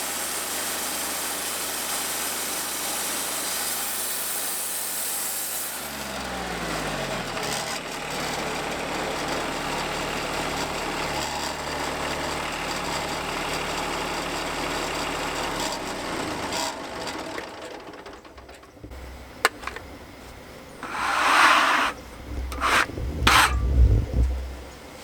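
Wood-Mizer portable band sawmill cutting through a log, the blade hissing steadily. About six seconds in, the cut ends and the engine slows with a falling pitch, and the sound dies away over the following ten seconds or so. Near the end come a few loud scraping knocks.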